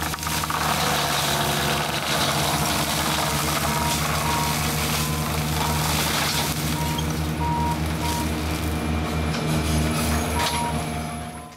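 Tracked carrier's diesel engine running steadily under load while its hydraulic forestry mulcher head shreds brush, with a short high beep from a warning alarm repeating at irregular gaps. The sound fades out near the end.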